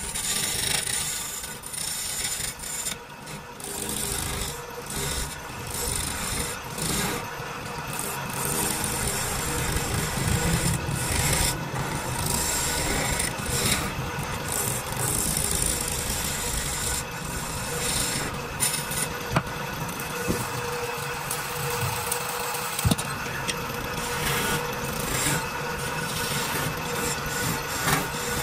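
Hand turning chisel cutting a spinning wooden baluster blank on a wood lathe: a continuous rasping, scraping sound of shavings being cut, growing and easing as the tool bites, over the lathe's steady hum.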